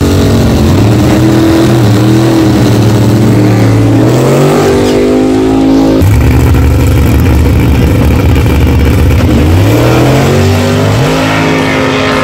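Drag-racing engines running loud at the starting line, their revs climbing in rising sweeps twice, then a car launching and pulling away down the strip near the end.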